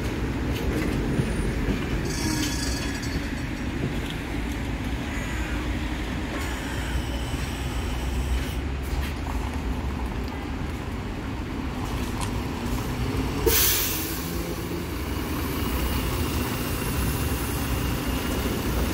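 City bus engine running as the bus drives slowly past, close by, with a steady low rumble. About thirteen seconds in comes a short, sharp hiss of compressed air from its air brakes.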